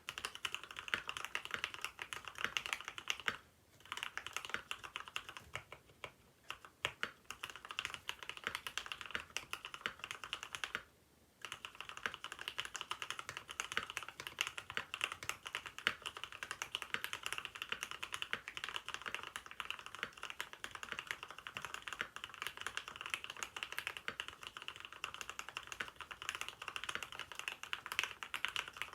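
Mechanical keyboard being typed on in quick, continuous runs of key clacks, with a bright, droplet-like sound because the plate foam has been taken out. The typing pauses briefly about three and eleven seconds in.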